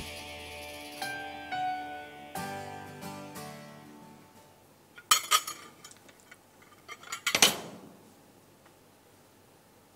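Soft piano-like background music with sustained notes fading out over the first four seconds, then a metal fork clinking against a plate in two short clusters, about five and seven seconds in.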